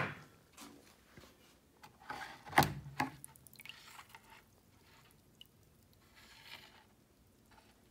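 Handling noises around an electrolysis bowl: a sharp click at the start as the power supply is unplugged, a louder knock and clatter about two and a half seconds in, then small clicks and soft wet sounds as a rusty metal clamp is moved in murky water.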